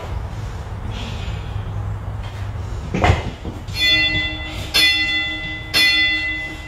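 Interval timer's bell-like chime sounding three times, about a second apart, marking the change to the next minute of an every-minute-on-the-minute workout. A thump comes just before the chimes.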